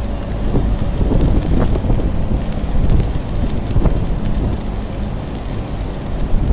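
Stick-welding arc crackling and sizzling steadily over a low hum.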